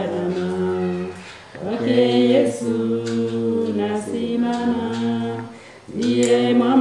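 Background music: a cappella voices singing long held notes in phrases over a low, steady drone, with short breaks about a second and a half in and again near the end.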